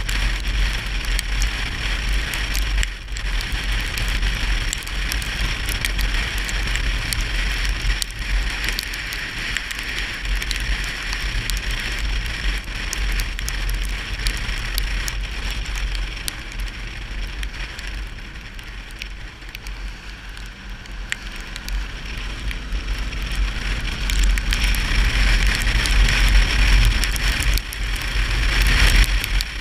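Fire crackling and hissing: a steady hiss scattered with many small sharp crackles over a low rumble. It eases off in the middle, then grows louder near the end as the fire takes hold.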